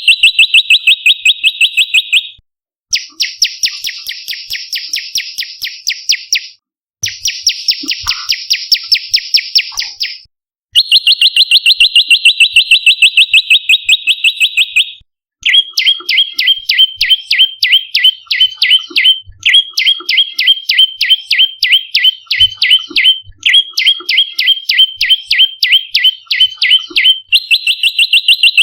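Prenjak lumut (a small Indonesian warbler) calling in fast trilled series of sharp notes, about nine a second. The bouts last a few seconds each, with brief breaks, and the notes in the later bouts are lower and down-slurred. It is a call used to lure and stir up other prenjak.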